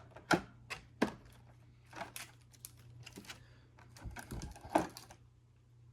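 Scattered clicks and taps of a diecast model airplane being handled and lifted out of its box packaging, a few sharp knocks at uneven intervals.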